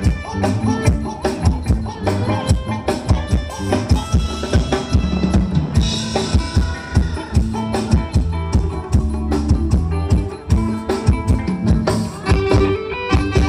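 Live band playing a Thai ramwong dance song: a drum kit keeps a steady, driving beat with a heavy bass drum under a bass line and melody.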